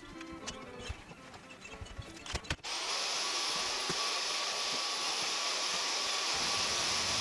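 Background music for the first two and a half seconds, then a cut to a vacuum cleaner running: a loud, steady rush of air with a faint motor whine.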